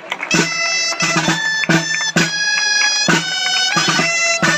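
Traditional Valencian dance music: a dolçaina (shawm) playing a reedy melody of held notes over a steady drumbeat from a tabalet, about two strokes a second.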